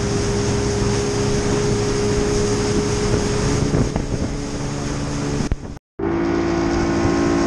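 Yamaha 150 outboard motor running at speed: a steady engine hum under rushing water and wind noise on the microphone. The sound drops out for a moment about six seconds in, then carries on at a slightly different pitch.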